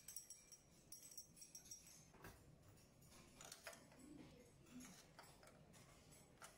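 Near silence, with a few faint, scattered clinks of glass boiling tubes being set into a glass beaker of ice water.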